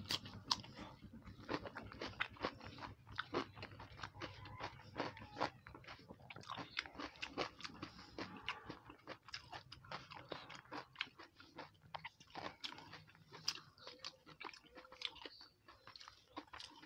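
Close-miked eating sounds of a person chewing rice and curry eaten by hand, heard through a lapel microphone: irregular wet mouth clicks, smacks and small crunches throughout.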